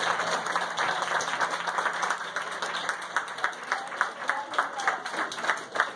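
Seated guests applauding, many hands clapping at once; the applause thins toward the end into more separate claps.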